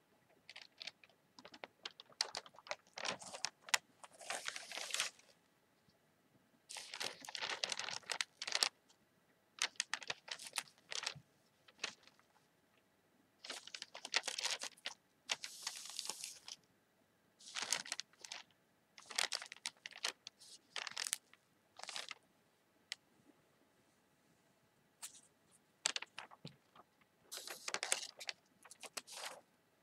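Newspaper pages rustling and crinkling as they are turned and handled, in repeated bursts of a second or two with short quiet gaps between.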